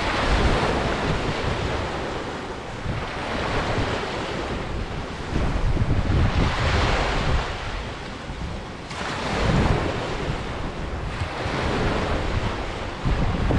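Ocean surf breaking and washing up a beach, swelling and easing every few seconds, with wind gusting on the microphone.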